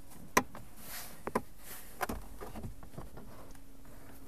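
A few sharp plastic clicks and knocks from a car glovebox being pushed into place in the dashboard, the loudest about half a second in and two quick ones near the middle.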